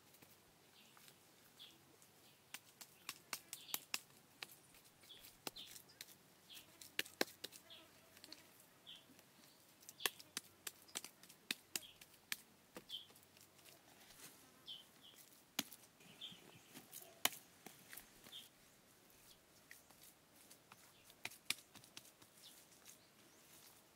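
Irregular sharp clicks and knocks, at times several a second, with short high chirps scattered between them.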